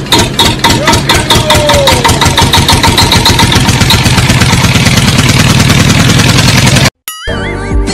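Motorcycle engine sound starting and running, its even beat quickening as it revs, then cutting off suddenly about seven seconds in.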